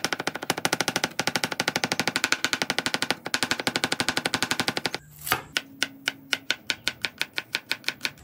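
Chef's knife mincing garlic on a wooden cutting board: a fast, even run of blade strikes on the board. About five seconds in it breaks off with one louder knock, then goes on as a slower run of chops.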